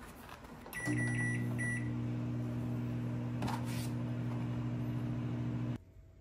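SK magic microwave oven being started: a few short keypad beeps, then the oven running with a steady low hum. There is a click about halfway through, and the hum cuts off suddenly near the end.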